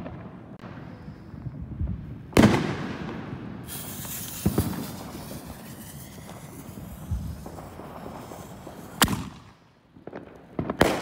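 Consumer fireworks going off: four sharp bangs, the loudest about two and a half seconds in, followed by a few seconds of high hissing crackle, with two more bangs near the end.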